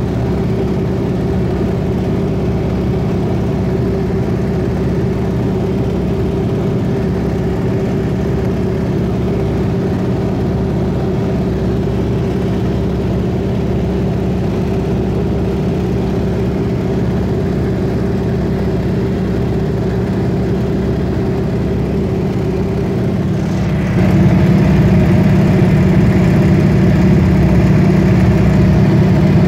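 Yak-52's nine-cylinder radial engine running steadily in cruise, heard from inside the cockpit as a loud, even drone. It gets louder about 24 seconds in.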